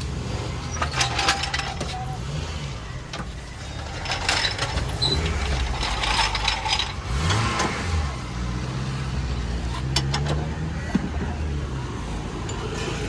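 A car engine running with a low hum whose pitch shifts, briefly rising about seven seconds in. Scattered metallic clinks and clatter from work on the car come at intervals over it.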